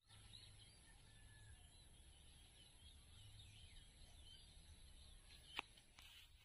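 Faint outdoor field ambience: small birds chirping over a low rumble, with two sharp clicks near the end.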